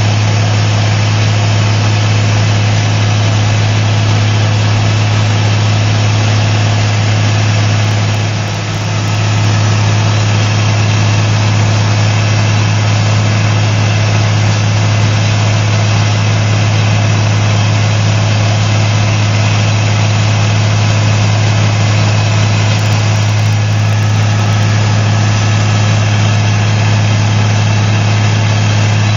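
The Cummins N14 diesel engine of an Ingersoll-Rand DM45LP crawler blast hole drill running steadily with a strong low drone, dipping briefly about eight seconds in.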